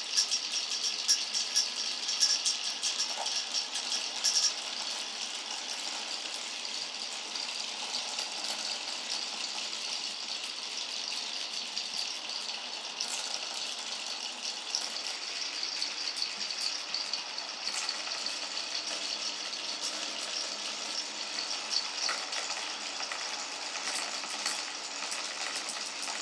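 Many glass marbles rolling and clattering along wooden marble-run tracks: a continuous dense rattle of small clicks, busiest in the first few seconds.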